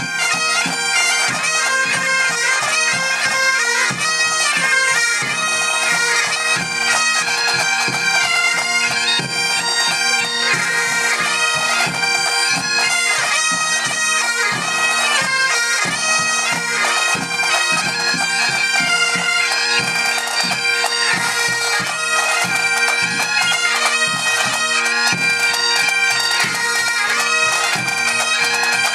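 Pipe band playing: Great Highland bagpipes sound a tune over their steady drones, with the band's drums beating under it.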